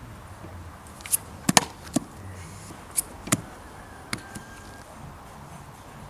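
A series of short, sharp knocks, irregular and some coming in quick pairs, over about three seconds.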